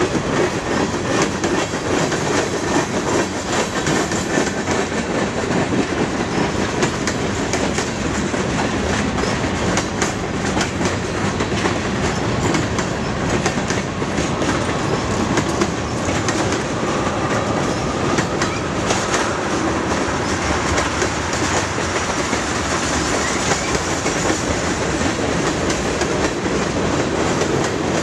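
Freight cars of a mixed freight train rolling past close by: a steady rumble and clatter of steel wheels over the rail joints, with a faint wheel squeal around the middle.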